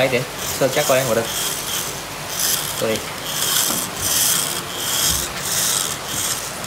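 Small Bluetooth toy RC car's electric motor and gears whirring in short rasping bursts, about one every 0.7 s, as it drives in stops and starts across a glass tabletop.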